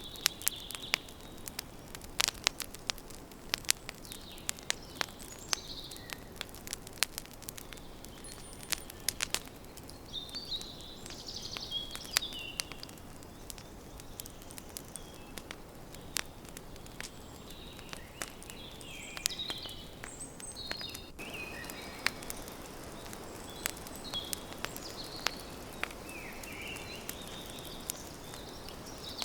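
Campfire crackling, with frequent sharp pops and snaps, while birds chirp here and there in the surrounding forest.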